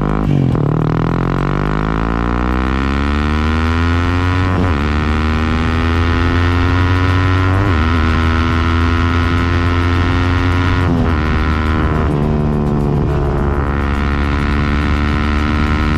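Motorcycle engine under load while riding, its pitch climbing steadily from low revs. There are short breaks in the sound about four and a half, seven and a half and eleven seconds in, and a few brief wavers near the end.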